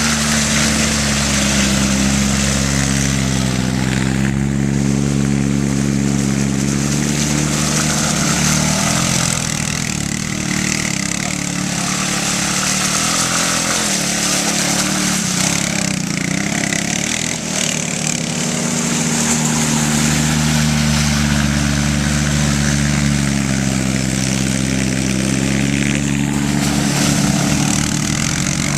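ATV engine running and changing speed, its pitch rising and falling, quieter in the middle stretch and stronger again later on.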